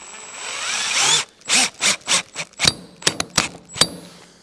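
A handheld power tool whines as it winds up for about a second. About nine sharp knocks with a metallic ring follow over the next three seconds.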